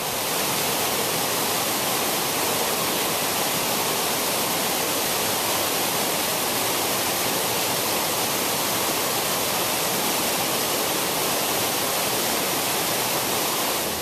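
A waterfall in full flood after days of rain, heavy water pouring down a cliff face in a loud, steady rush.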